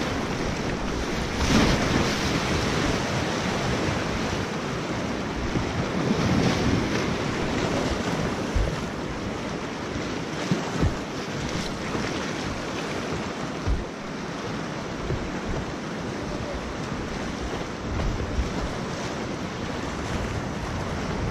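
Rushing whitewater of a fast river heard from a kayak running rapids, a steady roar with paddles splashing and a few low knocks, with wind buffeting the camera's microphone.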